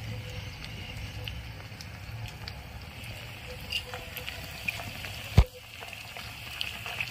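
Onions and spices frying in oil in a miniature clay pot over a tiny fire: scattered small crackles over a low steady hum, with one sharp tap about five seconds in.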